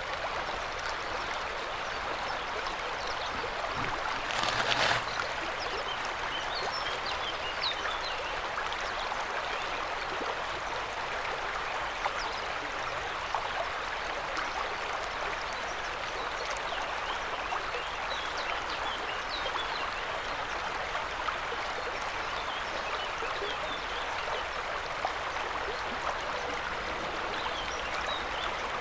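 River water rushing and babbling steadily, with small high trickling ticks over the flow. A brief louder surge comes about four to five seconds in.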